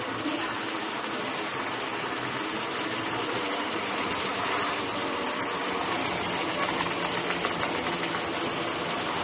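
Large-format printer running steadily while printing a vinyl car wrap, the printed sheet feeding out toward the take-up roll.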